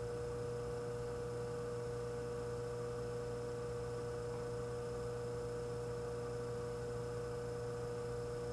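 Antique Frigidaire refrigerator compressor running on a test charge of R600 butane refrigerant: a steady, even hum with one clear tone through it.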